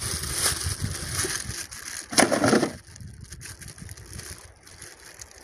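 Thin plastic bag crinkling and rustling as hands knead bait dough inside it, with one louder crinkle a little over two seconds in, then softer handling.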